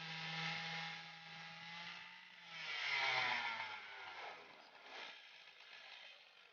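Two-stroke chainsaw power head driving a swing-blade sawmill: it runs steadily, then its pitch falls and it grows louder about two and a half seconds in, and it dies away near the end.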